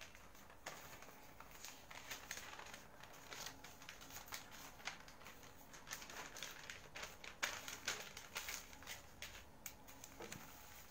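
Faint, irregular scratching and tapping strokes of a diagram being drawn by hand.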